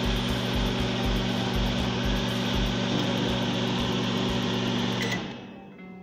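Microwave oven running with a steady hum of its transformer and fan, back in working order after a no-power repair. About five seconds in it stops and the hum dies away quickly.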